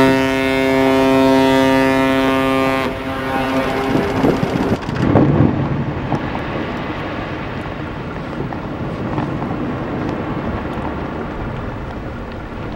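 A deep ship's horn blast, held steady for about three seconds and then cut off. It is followed by a continuous rumbling wash with scattered cracks and thumps: sea ice being broken by an icebreaker's hull, with wind.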